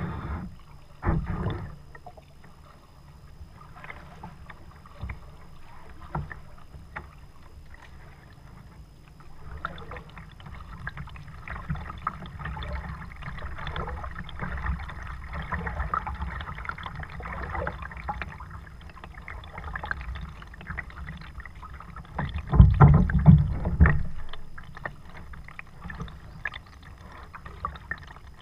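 Paddling a Perception Pescador 12 sit-on-top kayak on calm water: the paddle blades dip and pull through the water with drips, light splashes and irregular small clicks. Late on, a loud low rumble lasts about a second and a half.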